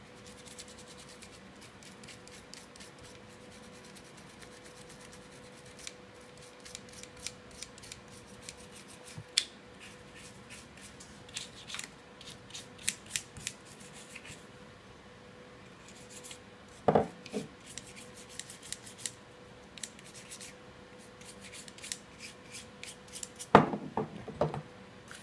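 Toothbrush bristles scrubbing grease into a KSC Glock 19 airsoft pistol's frame and slide, in runs of quick scratchy strokes. There are two louder knocks, about 17 s and 23 s in, as the pistol parts are handled on the table.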